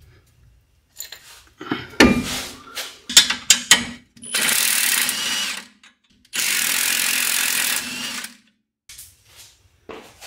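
Metal tool clicks and knocks, then a power tool runs twice, about a second and a half each, spinning a bolt out of the front strut's lower mount at the steering knuckle while a wrench holds the nut.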